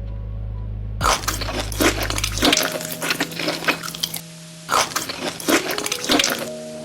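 Crunchy food being bitten and chewed close to the microphone, in two spells of rapid cracks and crunches, over low background music.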